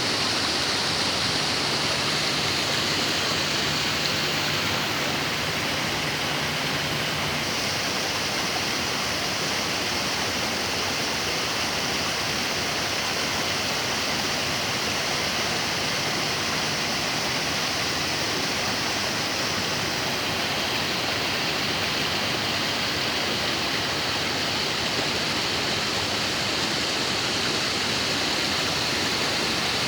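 Waterfall on a rocky forest stream: a steady rush of falling, churning water.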